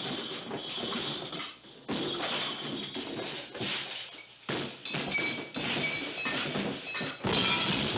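Cartoon soundtrack: orchestral music with crash and thud sound effects, cutting off sharply and starting again a few times.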